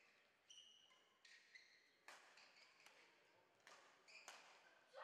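Faint badminton rally: sharp racket strikes on the shuttlecock, about one a second, mixed with short high squeaks of shoes on the court.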